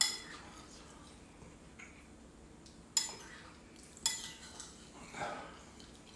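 Metal spoon clinking against a ceramic bowl of curry while scooping, three sharp clinks with a short ringing: one at the start, one about three seconds in and one about a second later.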